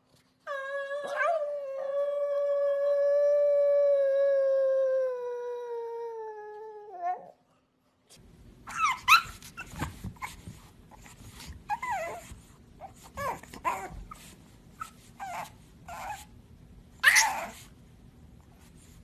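Pug howling one long call of about seven seconds, its pitch sagging toward the end. Then a pug puppy gives short, sharp yips and whimpers, scattered and uneven, with the loudest near the end.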